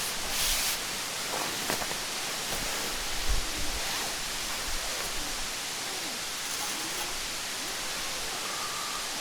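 Mountain stream rushing steadily. A short hiss under a second in and a low thump about three seconds in.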